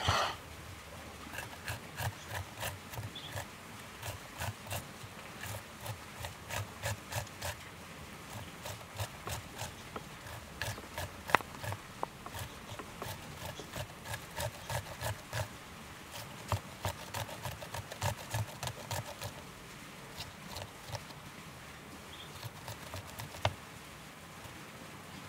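A green pepper being grated on a metal box grater: rhythmic rasping strokes, about two a second, that thin out and stop about twenty seconds in.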